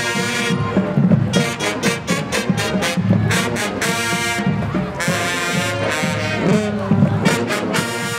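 Marching band playing: the brass section, with sousaphones and horns, holds loud chords that alternate with stretches of rapid drum hits.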